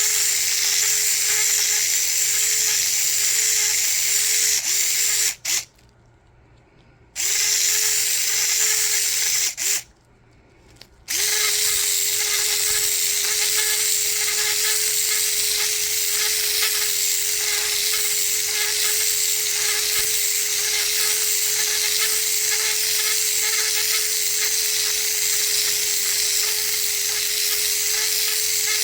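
Small electric mixer with a paddle attachment stirring epoxy resin: a steady motor whine that cuts out twice for a second or so about a fifth and a third of the way in, then runs on.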